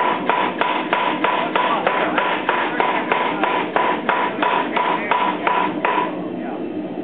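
400 lb Chambersburg air power hammer striking hot 4140 steel in a steady rhythm of about three blows a second, with a ringing tone on each blow. The blows stop about six seconds in.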